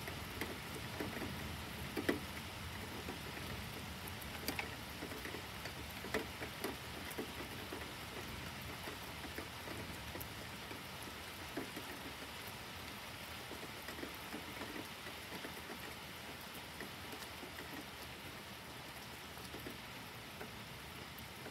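Steady rain falling, with scattered drops tapping sharply on a nearby surface, more often in the first half; the rain eases slightly toward the end.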